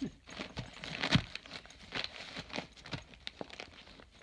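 A dog handling a gift-wrapped present: irregular crinkling and rustling of wrapping paper with soft knocks as the package is picked up, dropped and mouthed, the loudest knock about a second in.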